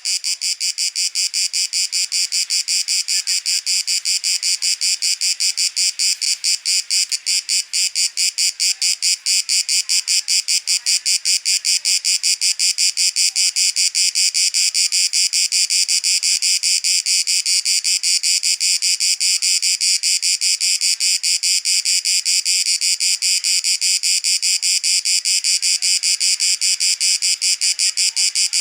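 Greek cicadas singing: a loud, steady, fast pulsing buzz, high-pitched, with no break.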